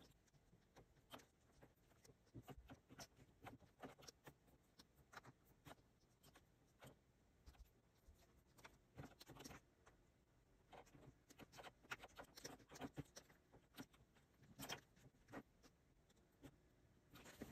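Faint, irregular clicks and taps: a stylus tapping and stroking on a Wacom Cintiq pen display's screen, mixed with keys pressed on a mechanical keyboard for drawing shortcuts.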